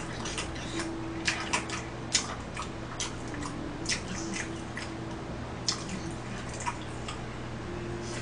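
Soft, irregular mouth clicks and smacks of someone chewing, a few a second and not evenly spaced, over a faint steady hum.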